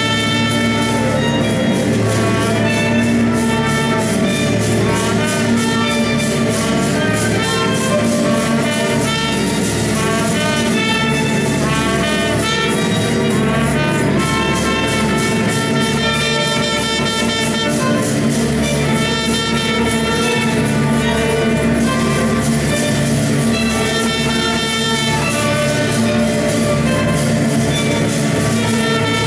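Small chamber ensemble playing live: a trumpet and two violins together over sustained low notes.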